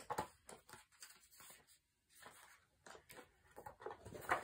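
Faint, scattered rustles and light taps of paper and craft supplies being handled, a little louder near the end.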